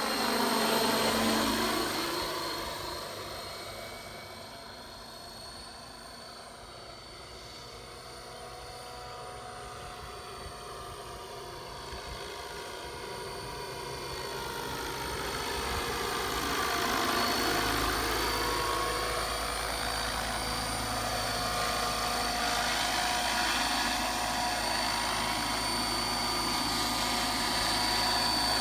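Align 600-size RC scale helicopter flying, its motor and rotor blades giving a steady high whine. It is loudest about a second in, fades away over the next few seconds, then grows louder again from about halfway and holds steady.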